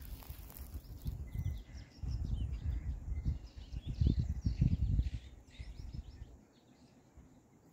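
Wind buffeting the microphone in irregular gusts, with small birds chirping faintly over it; the wind drops away about six and a half seconds in, leaving the faint chirps.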